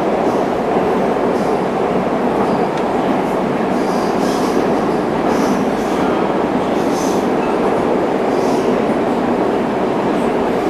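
Interior running noise of a Metrowagonmash 81-740.4/741.4 "Rusich" metro train moving through a tunnel: a steady loud rumble from wheels and motors. Short high hisses come every second or so through the second half.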